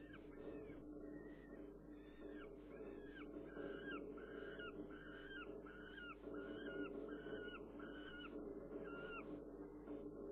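Juvenile falcon giving a long run of short, whining calls, repeated about one and a half times a second, each bending down at its end: a fledgling's begging calls. A steady low hum runs underneath.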